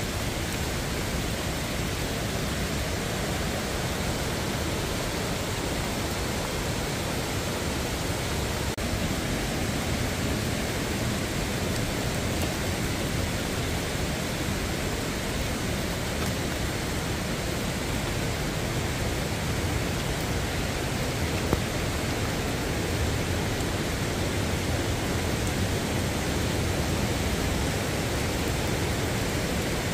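Mountain stream rushing steadily, an even hiss of running water without a break.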